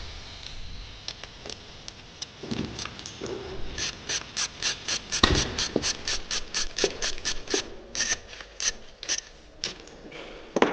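Bike repair work: a steady run of sharp mechanical clicks, about four a second, starting a few seconds in and stopping near the end, with a few dull knocks among them.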